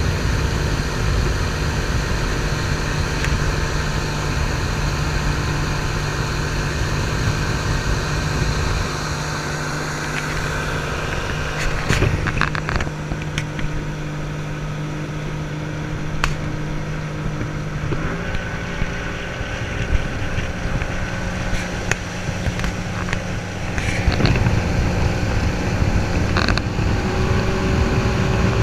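Outboard motor running steadily at speed. Its pitch steps up about eighteen seconds in, with scattered short knocks.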